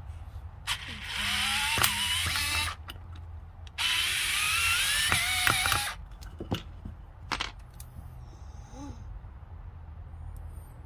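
Small cordless electric screwdriver running twice, about two seconds each time, its motor whine rising in pitch, followed by a few clicks.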